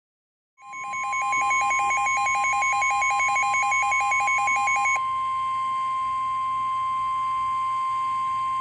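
NOAA Weather Radio warning alarm, the steady 1050 Hz attention tone, starting about half a second in and holding loud and unbroken: the signal that a severe thunderstorm warning broadcast follows. For the first four seconds a rapid, pulsing two-pitch alert beep sounds over it, then stops.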